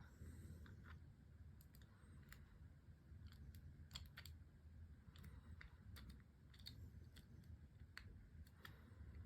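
Faint, irregular metallic clicks and light scraping of a lock pick working the pins inside a Move N Store MP70 disc padlock, the clicks being the pins setting under tension. A steady low hum runs underneath.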